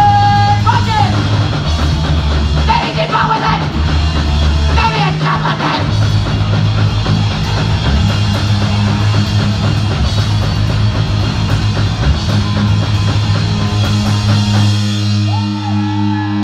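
Live hardcore punk band playing loud, with electric guitar, bass, a pounding drum kit and vocals. Near the end the full band drops away, leaving held low notes ringing.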